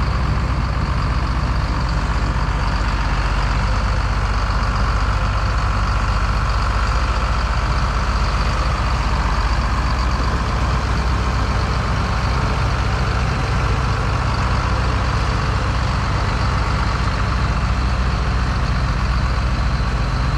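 Farm tractor engine running steadily at a constant speed, with no change in pitch or level.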